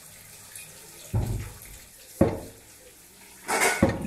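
Kitchen sink sounds: a dull knock about a second in, a sharper clatter of kitchenware a second later, then a short half-second rush of water near the end.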